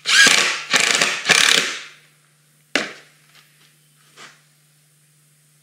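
Cordless drill driving a wood screw home in three quick pulses over about two seconds, the motor's whine bending in pitch as the screw bites. A single sharp knock follows shortly after, then a few faint ticks.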